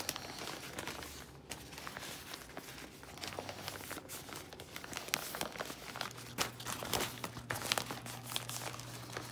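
Newspaper wrapping crinkling and rustling in irregular crackles as hands pull it off a potted orchid, with bits of paper tearing.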